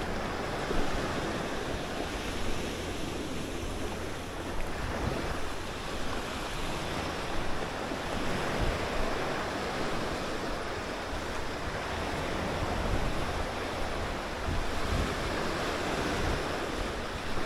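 Small sea waves washing onto a sandy, rocky shore, a steady surf wash rising and falling, with wind buffeting the microphone in low rumbling gusts.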